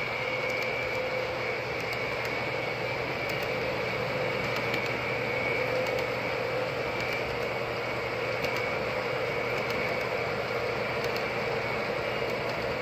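Traditional O gauge model freight train of double-stack container well cars rolling past on three-rail track: a steady rumble and hiss of the wheels with two faint steady whining tones and light ticks.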